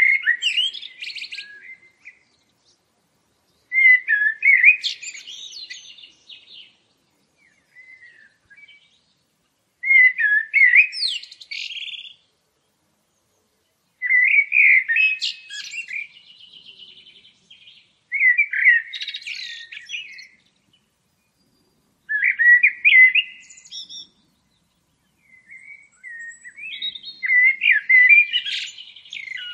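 Songbird singing: seven short phrases of whistled notes ending in twitters, about two seconds each and roughly every four seconds, with silence between them.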